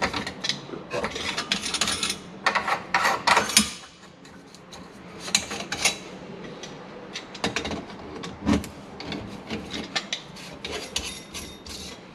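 A brass sink drain tailpiece slip nut being loosened with tongue-and-groove pliers and then unscrewed by hand: metal scraping and rubbing with scattered clicks, busiest in the first four seconds, then lighter and more spaced out.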